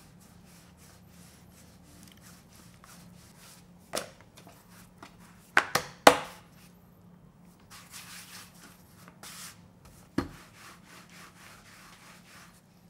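Rolling pin rolling out flour-dusted noodle dough on a wooden board: a soft rubbing with many light clicks, and a few sharp knocks on the board, the loudest about four to six seconds in and again near ten seconds.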